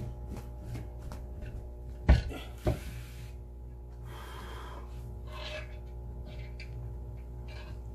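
A heavy earthenware onggi jar barbecue set down on bricks on a wooden deck: two solid thumps about half a second apart, followed by softer scuffing and handling sounds, over a steady low hum.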